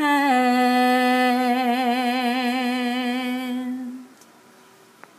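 A woman singing without accompaniment, holding one long note with vibrato for about four seconds. The pitch dips slightly at the start, and the note then stops. A faint click follows near the end.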